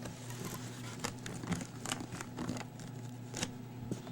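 A shipping box and its packing being handled and pulled open: crinkling and tearing with scattered clicks and knocks.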